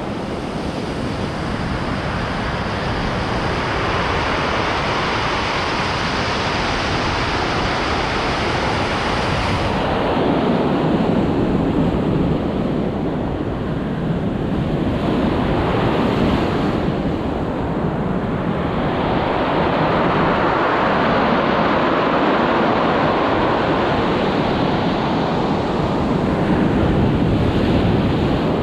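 Heavy surf breaking and washing up a pebble beach, swelling and easing in surges every few seconds, with wind rumbling on the microphone.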